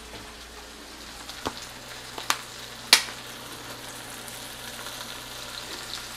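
Ground turkey frying in oil in a pan, a steady sizzle. Three sharp clicks or knocks come through between about one and a half and three seconds in, the last the loudest.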